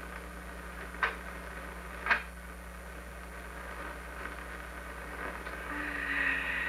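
Two short, sharp knocks about a second apart over a steady low hum and hiss, then a soft rustling swell near the end.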